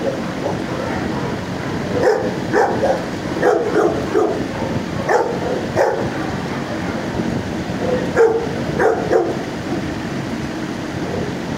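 Dogs in neighboring shelter kennels barking in several short bouts a few seconds apart, over a steady background noise.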